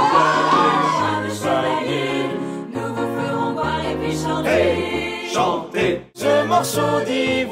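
Ensemble of singers singing together with piano accompaniment, as in a stage musical number; the music drops out for an instant about six seconds in.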